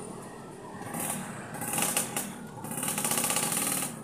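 Small motorcycle engines buzzing past close by in busy road traffic, loudest at about two seconds in and again near the end.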